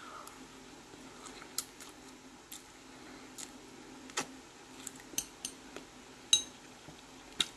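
Metal fork clicking and clinking lightly against a plate while eating, a scatter of short sharp ticks, two of them louder near the end, over a faint steady hum.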